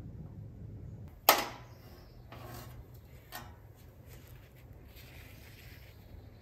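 One sharp, loud knock about a second in, ringing on briefly, followed by two softer knocks and some rustling as things are handled over the tractor's engine bay, with a faint low hum underneath.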